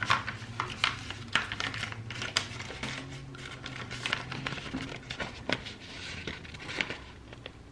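Plastic transfer tape and vinyl backing sheets crinkling and crackling as they are peeled and handled, in scattered sharp clicks.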